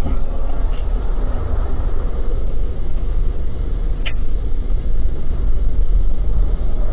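Car driving in traffic, heard through a dashcam inside the cabin: a steady low rumble of engine and road noise. A brief high chirp comes about four seconds in.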